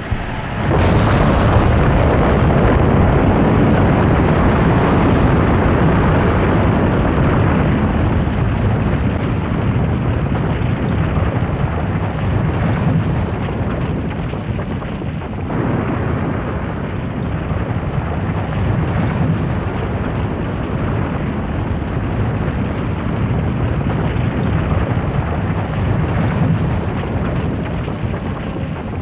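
A loud, continuous rushing noise with a heavy low end. It starts abruptly about half a second in and eases slightly about halfway through.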